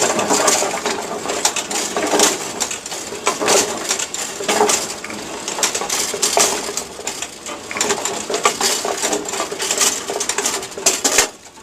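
Brunswick pinsetter running while its turret refills: wooden bowling pins clatter and knock against the metal turret and chutes as they come in one after another, over the rattle of the machine. The clatter stops suddenly near the end.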